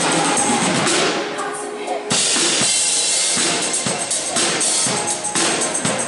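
Upbeat synth-pop song played live by a band, with keyboards, drums and tambourine on a steady beat. About a second in the sound thins as a sweep falls from high to low, and the full beat drops back in about two seconds in.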